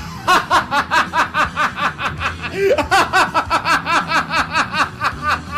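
A person laughing in a long, rapid run of high-pitched giggles, about four or five a second.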